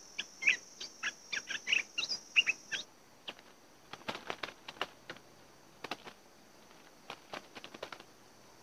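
Bulbuls calling in quick, sharp chirps for about three seconds over a steady high buzz. After that come scattered light taps and flutters as a bird moves about on a bamboo trap cage.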